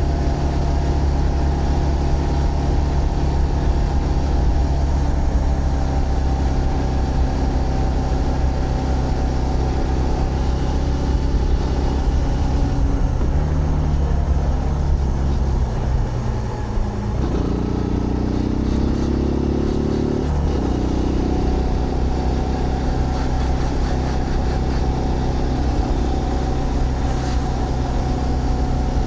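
Zontes GK 125 motorcycle's single-cylinder engine running at a steady pitch while riding. About halfway through the revs fall, then climb steadily for about three seconds and drop off sharply, then settle into steady running again.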